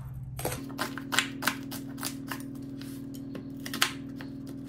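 Kitchen knife cutting vegetables on a cutting board: a string of sharp, irregular taps, about two to three a second.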